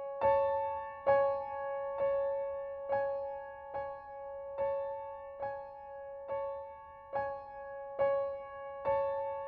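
Ringtone music: a slow, gentle keyboard melody of piano-like notes struck a little more than once a second, each ringing out and fading before the next.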